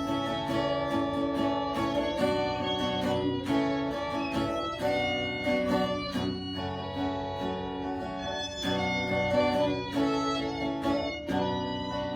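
Instrumental break of a folk ballad played live: acoustic guitar strumming under a violin melody of held notes.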